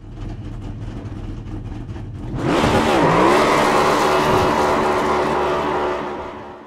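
Race car engine sound effect: a low rumble, then about two and a half seconds in the engine revs up loudly, its pitch dipping and climbing, and holds before fading out near the end.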